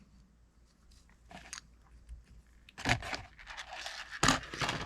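Small metal parts of a Gomexus SX450L fishing reel clicking and scraping as its ring and bearings are worked loose and come out. It is faint at first, with a few louder clattering scrapes in the second half.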